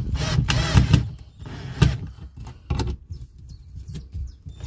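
Scraping and rustling as tools and parts are handled, with two sharp knocks about a second apart partway through.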